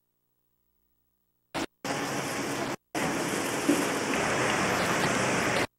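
Even hiss-like outdoor background noise in short stretches, each starting and stopping abruptly, with dead silence between them: a brief blip about a second and a half in, then about a second of noise, a short gap, and nearly three seconds more that cut off just before the end.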